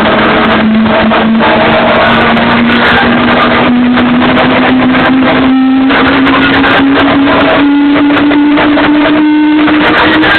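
Loud electronic dance music over a club sound system, with a sustained synth tone climbing slowly in pitch, as in a build-up.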